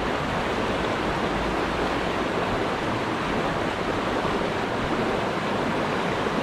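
Shallow mountain trout stream rushing over rocks through riffles, a steady, even rush of moving water.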